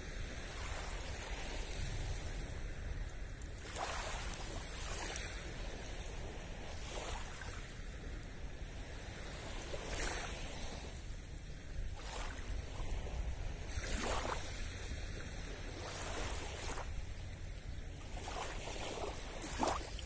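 Small, gentle waves lapping on a sandy shore of a calm sea, each little wavelet breaking in a soft wash every two to three seconds, over a steady low rumble of wind on the microphone.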